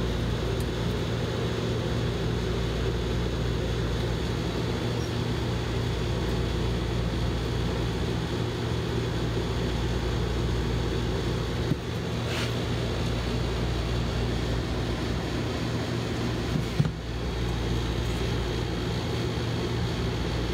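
Steady low hum of machine shop machinery running, with two light clicks of small metal parts being handled at a cylinder head's valve.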